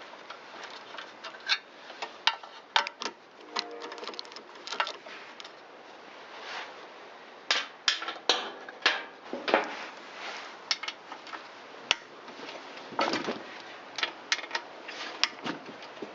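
Ratchet wrench with a three-eighths socket clicking in short irregular runs as it loosens the engine fan cover's bolts, with occasional sharper knocks.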